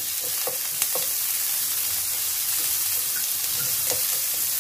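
Asparagus spears sizzling in melted butter and minced garlic in a frying pan: a steady frying hiss, with a few light clicks as chopsticks move the spears about.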